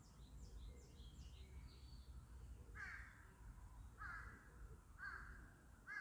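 Wild birds calling: a few quick, high, falling chirps from small birds in the first two seconds, then four harsh calls about a second apart, beginning about three seconds in.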